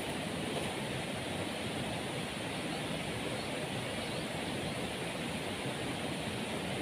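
Stream water flowing steadily, an even rushing with no change.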